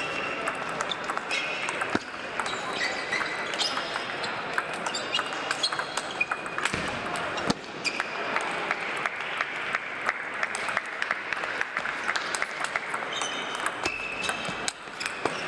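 Celluloid-type table tennis balls clicking off tables and rackets, from several tables in play at once, irregular and overlapping in a large reverberant hall. Short shoe squeaks on the floor and a low murmur of voices run under the clicks.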